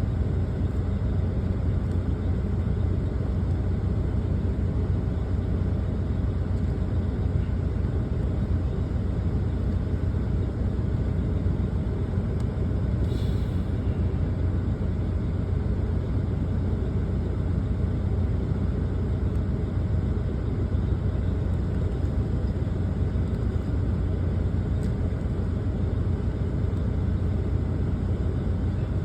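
Steady low rumble of a truck's engine running, heard from inside the cab.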